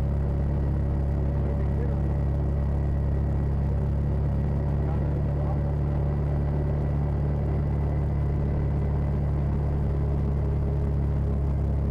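Side-by-side UTV engine and drivetrain running with a steady low drone while cruising at constant speed, heard from inside the open cab.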